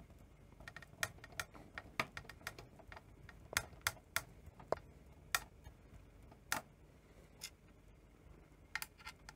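Screwdriver turning out a screw from the metal power-supply chassis of a Betamax video recorder: faint, irregular sharp clicks and ticks with short gaps between them, and a quick cluster of clicks near the end.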